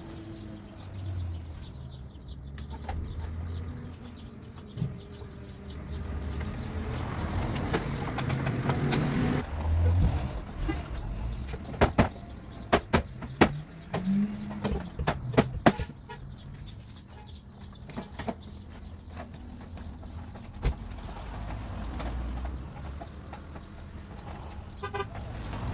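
Hammer knocking on a car's sheet-metal body panel: a quick run of sharp knocks about halfway through, over a low steady rumble.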